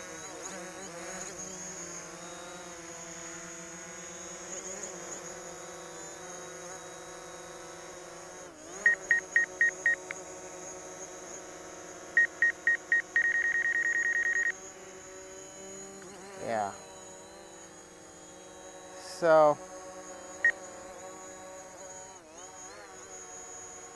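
DJI Mavic Pro quadcopter with low-noise propellers flying at a distance: a steady buzzing hum made of several pitch lines that drift slightly up and down. Partway through come two runs of short electronic beeps, the second ending in a beep held for about two seconds, and two brief vocal sounds follow later.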